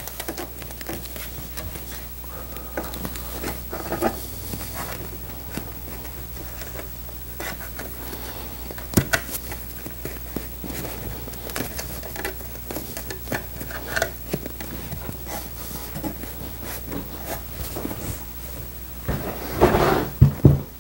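Hands rubbing and pressing foam seat padding onto a bucket seat's steel frame: soft rustling and scattered light knocks over a low steady hum, with a louder run of bumps near the end as the seat is handled on the bench.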